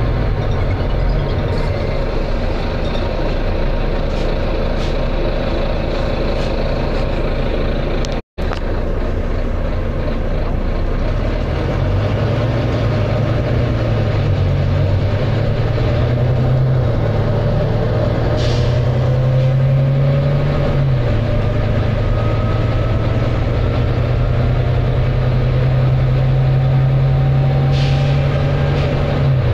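Volvo B9TL double-decker bus under way, heard from on board: its diesel engine pulling hard with a loud thrash, the engine note stepping up and down a few times with faint rising whines from the drivetrain. Two short air hisses come from the bus's air system, one a little past halfway and one near the end, and the sound drops out for an instant about 8 seconds in.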